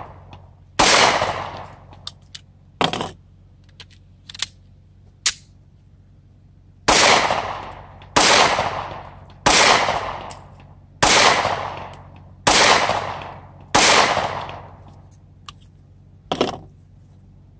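Walther PPS M2 9mm pistol being fired: one shot about a second in, a pause, then six shots at a steady pace about a second and a half apart, each ringing out as it fades. Fainter sharp cracks fall in the gaps and near the end.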